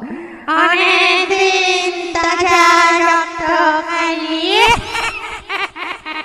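A high voice singing long held notes, gliding sharply upward about four and a half seconds in, then breaking off into short choppy fragments near the end.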